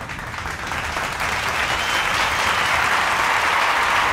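Applause, swelling about a second in and holding steady.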